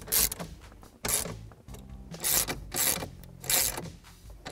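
Hand ratchet wrench clicking in short bursts, about five strokes roughly a second apart, as it is swung back and forth to tighten a fuse box mounting bolt.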